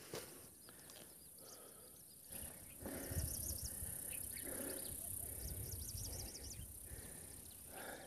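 Wind rumbling on the phone's microphone from about three seconds in, with birds chirping in quick runs of short high notes a few times.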